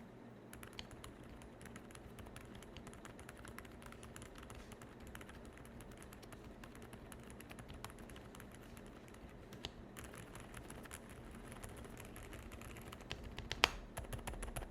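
Fast, faint typing on a mechanical keyboard with Outemu Silent Honey Peach V3 silent linear switches, their stem rails dampened with silicone so each keystroke lands soft. The typing pauses briefly about two-thirds of the way through, and a few louder strokes come near the end.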